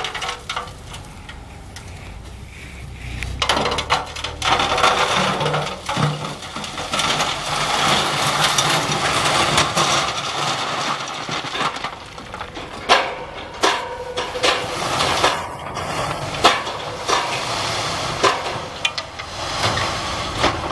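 A load of rock sliding out of a tipped dump truck bed and clattering onto a rock pile: a rushing slide of stones with many sharp knocks. It builds about four seconds in, and the loudest knocks come in the second half.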